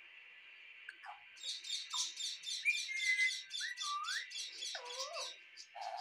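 Alexandrine parakeet calling: a rapid run of short, high chirps at about four a second, starting a little over a second in. Several whistled glides rising and falling in pitch are mixed in near the middle.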